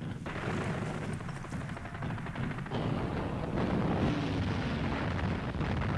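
Battle sounds of gunfire and explosions: a dense crackle of shots over a low rumble, swelling into a heavier rumble a little past halfway.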